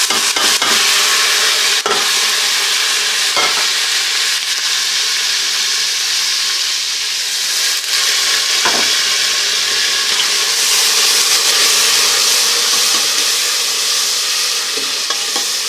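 Chopped tomatoes hitting hot ghee with browned onion and garlic in an aluminium pressure cooker pot, setting off a loud, steady sizzle. A few knocks of the stirring spoon against the pot come through.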